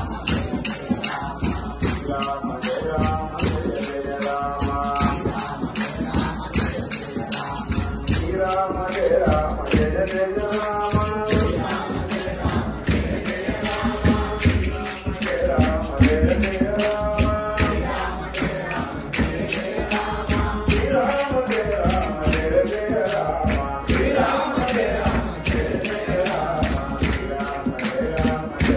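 Devotional Hindu group chanting (nama sankeertanam) led by a male singer, with harmonium accompaniment and a steady metallic percussion beat of about three strikes a second.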